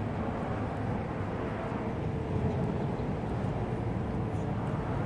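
Steady low outdoor background rumble with a faint hum.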